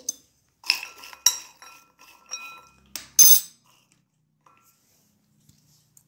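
A spoon clinking and scraping against a microwave-safe bowl of freshly microwaved almonds, stirring them to check if they are done. There are several clinks, each with a short ring from the bowl, over the first three and a half seconds; the loudest comes about three seconds in.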